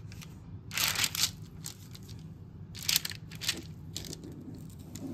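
Kitchen knife sawing down through a thick toasted-bread sandwich, giving several short crunches of the crust, the loudest about a second in and about three seconds in.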